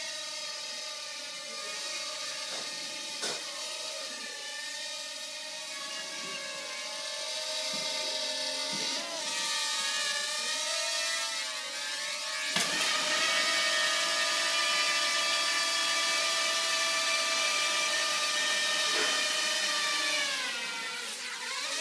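Hubsan X4 micro quadcopter's four tiny brushed motors and propellers whining in flight close by, the pitch wavering up and down as the throttle changes. A sharp tap comes about halfway through, after which the whine is louder.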